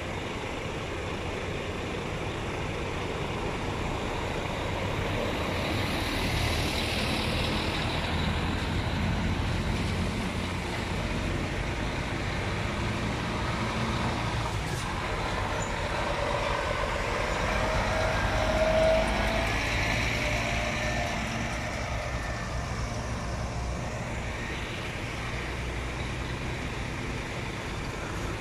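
Heavy trucks' diesel engines running as a slow convoy moves past. The sound swells twice as trucks come close and is loudest about two-thirds of the way through.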